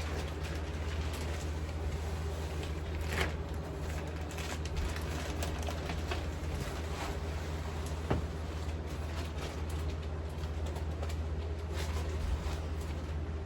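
A steady low hum, with a few light knocks and rustles as things are handled.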